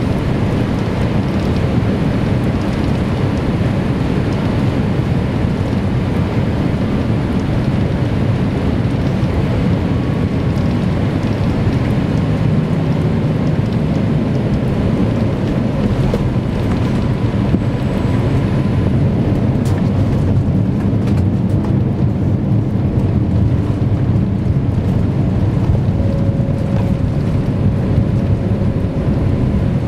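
Loud cabin noise inside a Boeing 787-8 landing: a steady deep rumble of engines and rushing air through the fuselage as it comes over the threshold and rolls out on the runway, the higher hiss thinning out in the second half.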